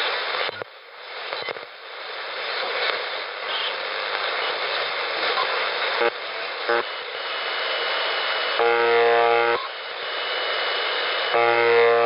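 AM shortwave receiver audio while tuning through static hiss, then two buzzes about a second long, one near the middle and one near the end. This is the UVB-76 "Buzzer", which transmits on 4625 kHz but comes through on medium wave by a spurious receiving channel of the Malakhit DSP receiver, which the listener takes for a harmonic of its local oscillator.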